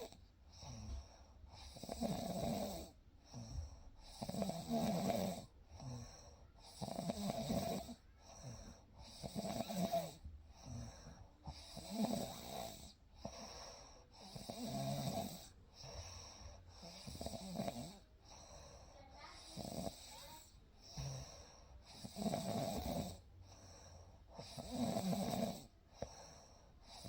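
A person snoring in a steady rhythm, one snore about every two and a half seconds, each a low rasp with a breathy hiss.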